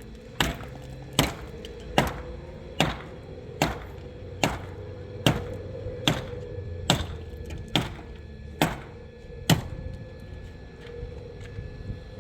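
Twelve hard, evenly spaced strikes, about one every 0.8 seconds, stopping about nine and a half seconds in, followed by a few faint taps. A faint steady hum runs underneath.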